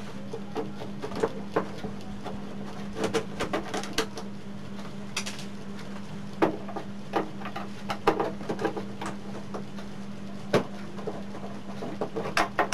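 Scattered clicks and knocks of a screwdriver and hands working the screws and plastic back cover of a CRT television, with a few louder knocks near the end. A steady low hum runs underneath.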